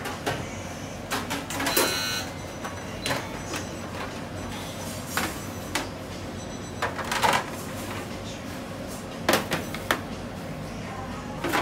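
Bakery kitchen work: scattered knocks and clinks of trays and utensils being handled, a few ringing briefly, over a steady low hum.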